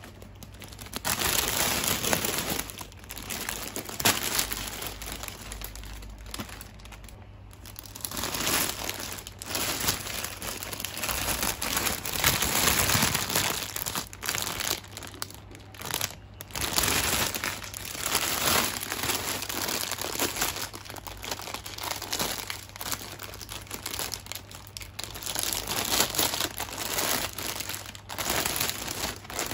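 Clear plastic packaging bag around a plush cushion crinkling and rustling as it is handled and opened, in irregular bursts with a couple of brief lulls.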